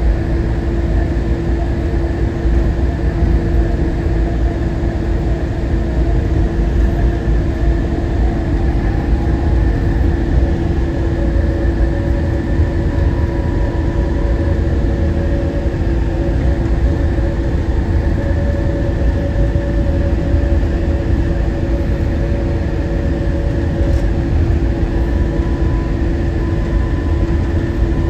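Inside a Newark AirTrain monorail car running along the guideway: a steady low rumble with a constant whine from the drive, and faint tones that drift a little in pitch.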